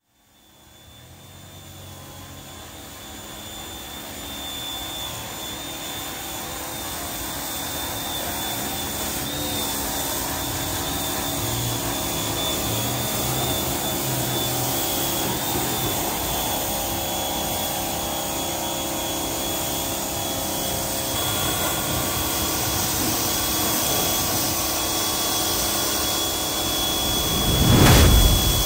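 Steady machine hiss with a high, even whine that fades in over the first few seconds, then a louder low rumble near the end.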